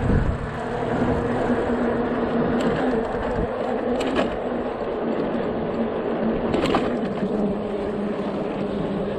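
RadMini electric bike riding: a steady rush of tyre and wind noise with a low, even hum, and three short sharp clicks, about two and a half, four and nearly seven seconds in.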